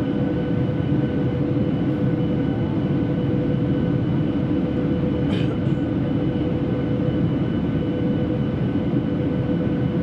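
Boeing 737-800 cabin noise during descent: the steady rush of air and engines heard from a window seat, with a few steady whining tones held over it.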